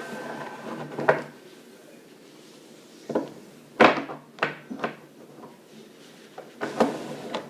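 Metal centrifugal clutch parts being handled and taken apart: a scattering of knocks and clinks, with a thin ringing from a struck metal part fading out in the first second.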